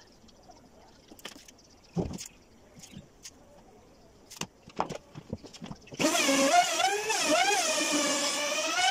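Scattered light taps and knocks, then about six seconds in an electric trim router comes on loud, its high motor whine wavering in pitch as the bit is pushed through the door panel under load.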